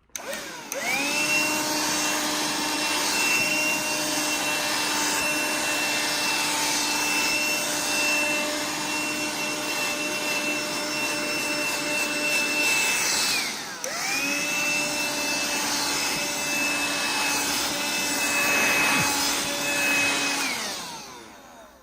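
BLACK+DECKER dustbuster QuickClean cordless handheld vacuum, fitted with a small extension nozzle, vacuuming a bathroom mat. It starts with a rising whine and runs steadily. About two-thirds of the way through it is switched off briefly and started again, then it winds down near the end.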